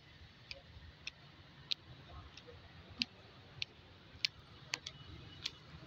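Footsteps on a hard painted path: light, sharp clicks coming evenly a little under twice a second, over a faint low rumble.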